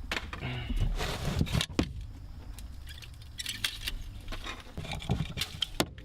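Irregular clicks, knocks and rustles of objects being handled and set down, with a burst of louder rustling about a second in.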